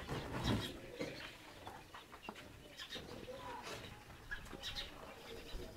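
Soft, scattered bird calls and clucks, with light clicks and taps in between.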